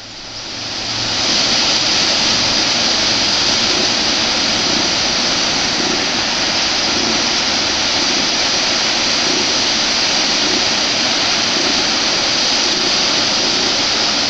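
Waterfall pouring: a loud, steady rush of falling water that swells up over the first second or so and then holds even.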